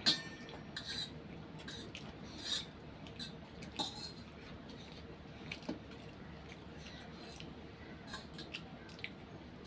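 Forks clicking and scraping against metal plates as two children eat instant noodles, with slurping and chewing sounds. Short, scattered sounds, the sharpest right at the start.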